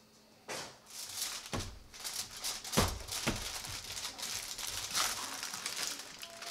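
Aluminium foil and baking paper crinkling and rustling as they are peeled back off a metal baking tray, with a few dull knocks, the loudest about three seconds in.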